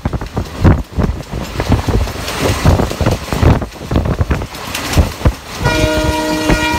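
A train running with a heavy, uneven rumble, and its horn sounding near the end for about a second.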